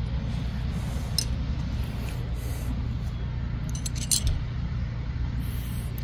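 A few light metallic clinks of a wrench and a loosened brake caliper bolt, once about a second in and a quick cluster around four seconds in, over a steady low rumble.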